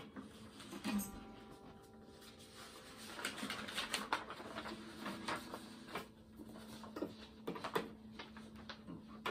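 Sheets of paper being handled and shuffled: scattered light rustles and clicks, with acoustic guitar strings ringing faintly underneath.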